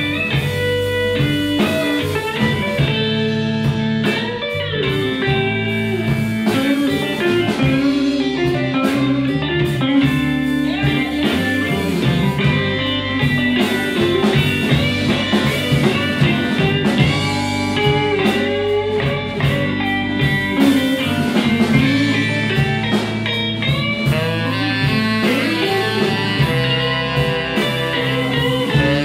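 Live blues band playing an instrumental passage: an electric guitar lead with notes bending up and down, over bass and drums.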